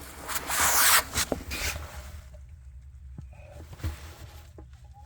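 Wading through floodwater in boots: a loud swish of water from about half a second in, then quieter sloshing and a few small knocks.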